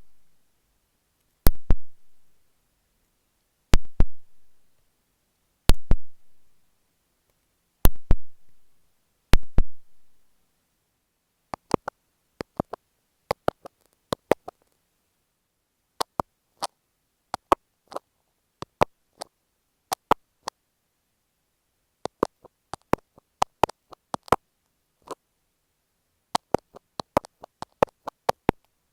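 Marking pins flicked against an earphone microphone: five sharp clicks, each with a low thud, about every two seconds. About twelve seconds in, quicker, lighter clicks and taps of marking pins and masking tape on the earphone mic start and come in irregular clusters.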